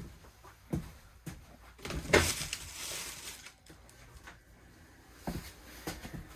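Handling noise: scattered knocks and clunks as objects are moved and set down, with a louder rustle about two seconds in and more knocks near the end as a coiled cable is picked up.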